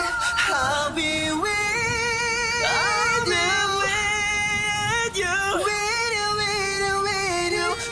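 Isolated vocals of a K-pop boy group with no backing track: several male voices holding long, wordless notes in layered harmony, with vibrato and gliding changes of pitch, over a steady hiss of added rain.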